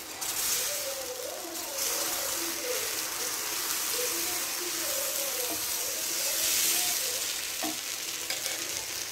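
Green gram (pesarattu) dosa batter sizzling on a hot nonstick tawa as it is poured and spread in a spiral with a ladle. The steady hiss starts with the pour and grows louder about two seconds in.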